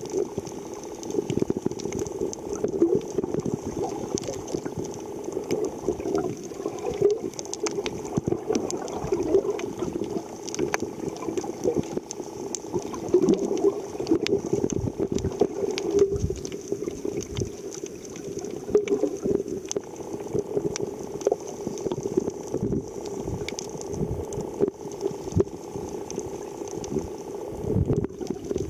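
Muffled underwater sound picked up by a submerged camera: water churning and sloshing around a snorkeler and swarming fish, with a steady low hum and irregular small clicks and thumps all through.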